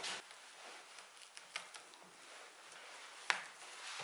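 Thin hemp twine drawn through jute burlap as the edge of an upholstered chair seat is hand-stitched with a needle: soft rasping pulls of the thread, a light tick about a second and a half in and a sharper click near the end.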